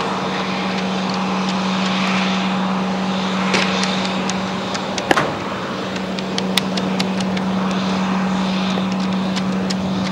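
Steady low hum of machinery around a parked airliner, with a few sharp clicks and one louder knock about five seconds in.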